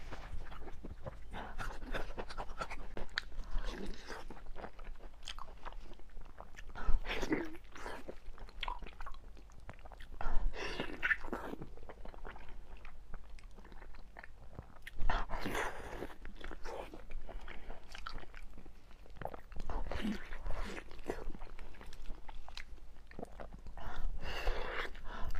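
Close-miked eating sounds of braised beef knuckle with tendon and cartilage: wet, irregular chewing and crunching, with several louder bites through the stretch, sped up to double speed.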